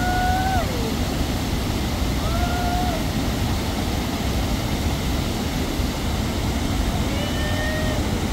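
Muddy floodwater rushing steadily over a stepped stone weir. A person's voice calls out in long held cries three times: at the start, about two seconds in, and near the end.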